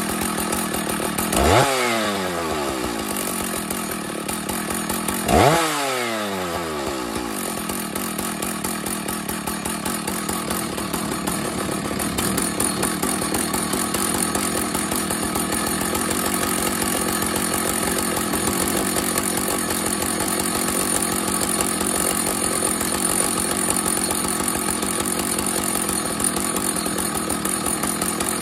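Husqvarna 1100CD two-stroke chainsaw running after a side-cover repair, revved up twice in quick blips near the start, each falling back, then running steadily.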